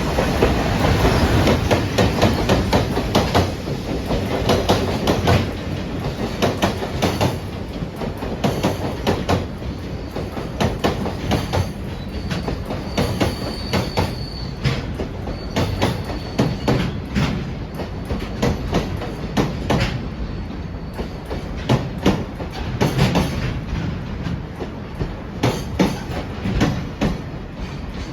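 Freight train wheels rolling over rail joints, giving a continuous rhythmic clickety-clack of sharp clicks in quick groups over a rumble. A faint thin high squeal comes in briefly about halfway through.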